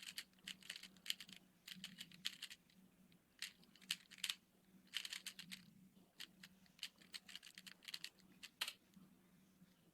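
Rubik's cube being turned at speed in a speedsolve: quick bursts of plastic clicking and clacking from the layers, stopping about nine seconds in.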